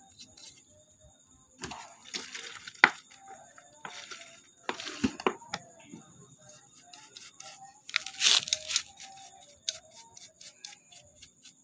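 Cleaning work on a car's hood latch: a few short scratchy bursts of noise, each about a second long, with sharp clicks of the metal mechanism, over a faint steady high whine.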